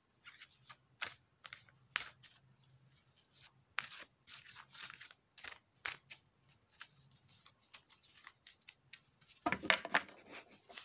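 A deck of tarot cards being shuffled by hand: irregular crisp card slides and taps, with a louder, denser run of shuffling about nine and a half seconds in.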